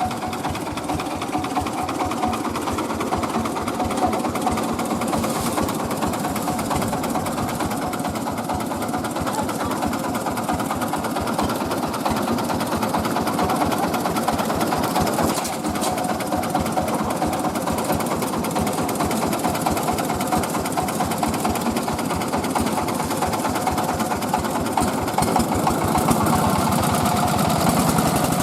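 Engine-driven mobile rice mill running steadily, with a fast, even mechanical clatter over the engine's hum.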